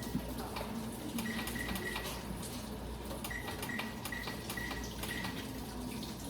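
Faint kitchen clatter: scattered light clicks and clinks of dishes and utensils over a steady low hum, with a faint high tone that comes and goes.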